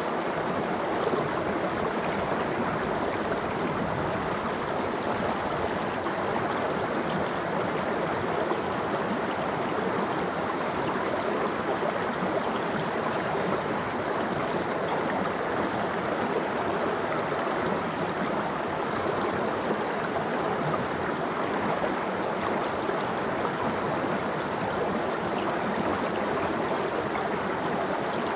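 Mountain stream flowing over rocks: a steady, unbroken rush and babble of water.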